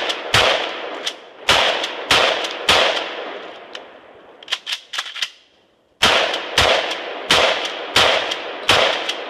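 Kel-Tec KSG 12-gauge pump-action shotgun fired in quick succession, about a shot every two-thirds of a second, loaded with high-brass shells. Four shots, then a pause of about three seconds with a few metallic clicks as the magazine tubes are switched, then five more shots.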